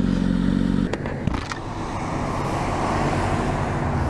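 Kawasaki Ninja ZX6R inline-four engine running steadily, its note dropping away about a second in. A few sharp clicks follow, then steady road and traffic noise.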